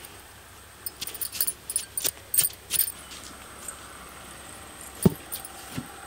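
Metal bangles clinking in quick, irregular jingles as a hand scoops and packs sandy soil around a bamboo pole. About five seconds in comes a single dull thud, the loudest sound, and a softer one just after.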